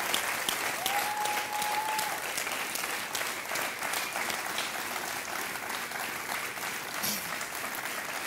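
Studio audience applauding steadily, many hands clapping together.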